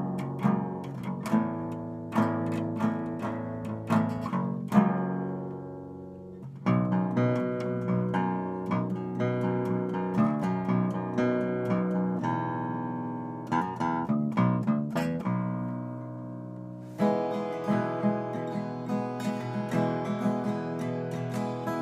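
Agile Renaissance 8X eight-string extended-range guitar played without other instruments: picked notes and strummed chords, each left to ring. A chord rings out about a third of the way in, a quick run of single notes follows in the middle, and steady rhythmic strumming picks up near the end.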